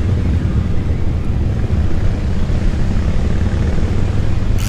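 Wind buffeting the microphone: a loud, steady low rumble with no break. A brief burst of clicking starts near the end.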